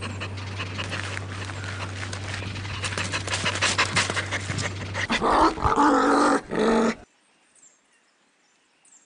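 A dog panting rapidly over a steady low hum, then about two seconds of louder pitched dog sounds, which cut off suddenly about seven seconds in.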